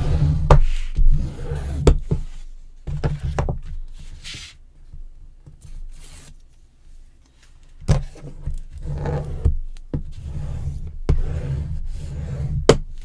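Hands rubbing and smoothing paper and chipboard pieces on a tabletop and sliding them about, with a few sharp knocks of board against the desk. Quieter for a couple of seconds in the middle.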